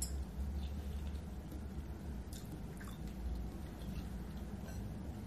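A person chewing a mouthful of seafood with lips closed, with a few soft wet mouth clicks scattered through, over a steady low hum.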